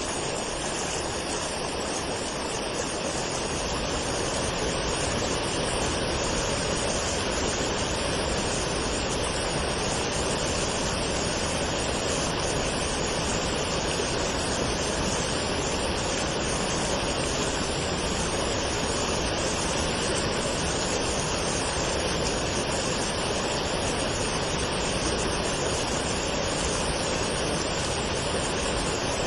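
Waterfall: water falling and rushing in a steady, even roar, a little louder after the first few seconds.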